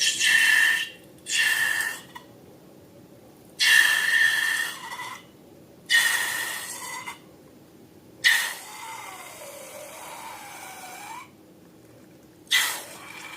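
Air hissing out of a balloon's neck in six short bursts, each with a whistling squeal; the fifth lasts about three seconds, its squeal wavering in pitch.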